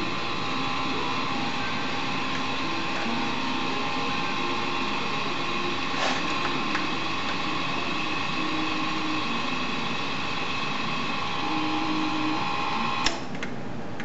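Small electric motor of an automatic chicken coop door running steadily, paying out the rope to lower a sliding metal door panel. It makes a steady whine, with a small click about six seconds in and a sharp click near the end, after which the whine largely drops away.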